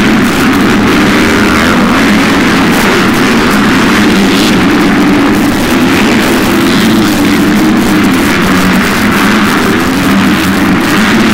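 Motocross dirt bikes' engines running loud at high revs, rising and falling as riders come through and launch over a jump.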